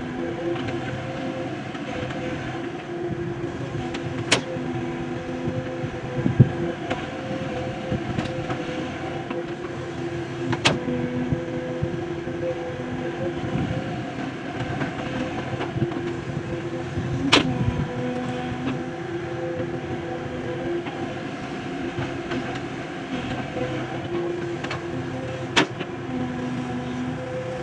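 JCB excavator's diesel engine running steadily while it works, with a few short sharp knocks spread through.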